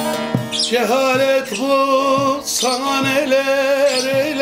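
Long-necked bağlama (saz) with a carved mulberry body being plucked, and under a second in a man's voice comes in, singing long held notes that waver in pitch over the instrument, with no words.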